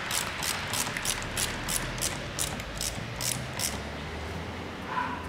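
Socket ratchet clicking at about three clicks a second as it turns the screw of a worm-drive hose clamp on a coolant expansion tank hose. The clicking stops a little past halfway, and a short squeak follows near the end.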